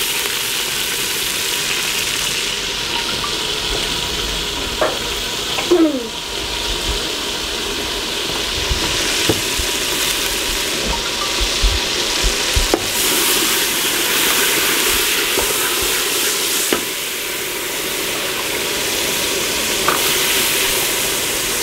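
Food frying in hot oil in a pan, a steady sizzle, with a few sharp knocks of a utensil against the pan as it is stirred.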